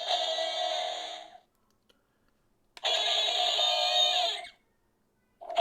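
Power Rangers Dino Fury Morpher toy playing short electronic music and sound-effect clips through its small, tinny speaker, set off by the Red Ranger key. One clip ends about a second and a half in, a button clicks, and another clip plays from about three seconds to four and a half.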